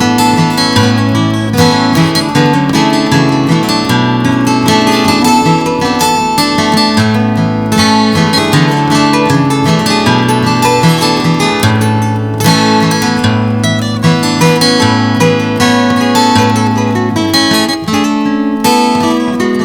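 Background music: acoustic guitar strummed and plucked at a steady lively pace.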